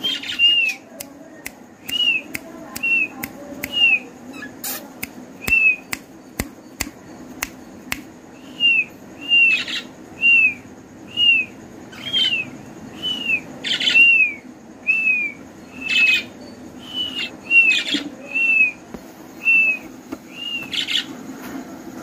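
Young budgerigar chicks chirping over and over, short arched chirps at about one a second, with sharp ticks and a few louder squeaks in between.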